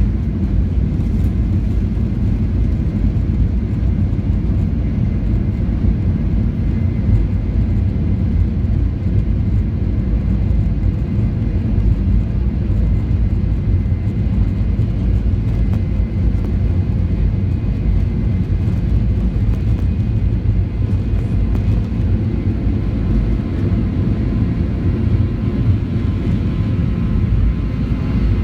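Steady, loud cabin rumble of a Boeing 737-800 under power, its CFM56 jet engines and the rushing air blending into an even low drone.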